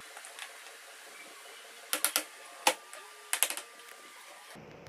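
Plastic caster wheels being pressed into the sockets in the base of a plastic air cooler: a handful of sharp clicks and knocks about two seconds in, the loudest a little later, and a quick cluster of clicks around three and a half seconds in.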